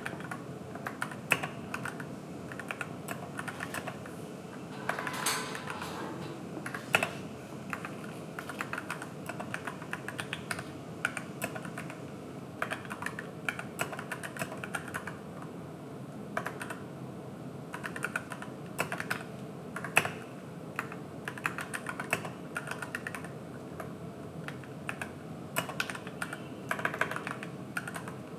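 Continuous typing on an AKKO 3061S Tokyo R2 mechanical keyboard with yellow linear switches and PBT keycaps: a fast, uneven patter of key clacks, with a few louder strikes now and then.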